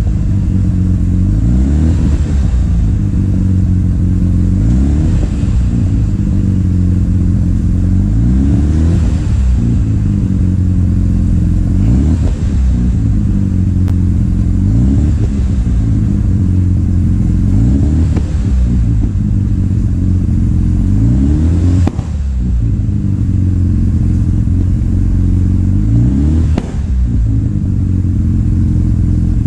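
Mazda RX-7 FD's twin-turbo 13B rotary engine, heard at the exhaust, blipped to low revs (up to about 2,700 rpm) over and over, its pitch rising and falling back toward idle every few seconds.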